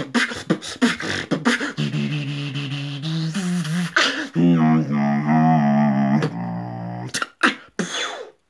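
Freestyle beatboxing: a fast run of vocal kick and snare hits, then a long held humming bass tone with hiss over it, followed by a second wavering pitched vocal line. A few last scattered hits come near the end.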